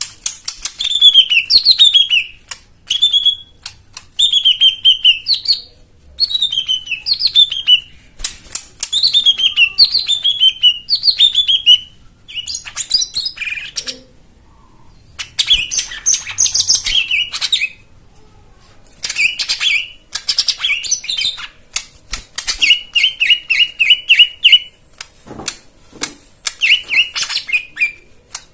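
Lesser green leafbird (cucak ijo mini) singing a loud, varied song. Phrases of quick, sharp falling notes come in bursts of a second or two, separated by short pauses, with a run of rapid repeated notes near the end.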